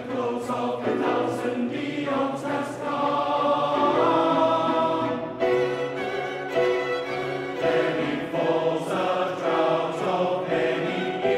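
Choir singing held chords, accompanied by violins and cellos. Short hissing consonants from the sung words stand out between the held notes.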